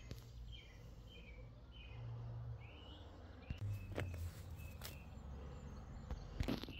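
Faint birdsong: a series of short chirps from small birds over a low, steady background hum, with a few soft clicks in the second half.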